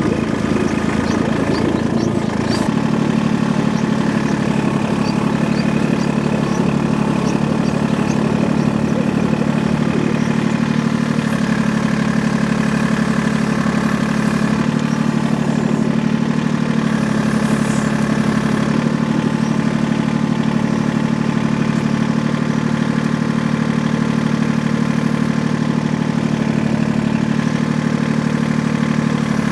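An engine running steadily at a constant speed, with a low, even drone throughout and a few faint clicks in the first couple of seconds.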